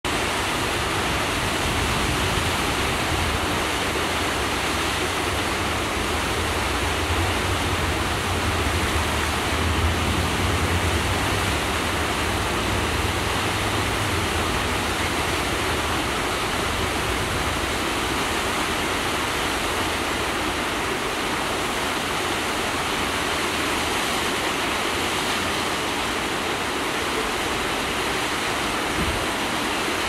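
Two-stream waterfall pouring over a lava ledge and splashing into its plunge pool: a steady, unbroken rush of falling water, with a low rumble that grows stronger for a few seconds in the middle.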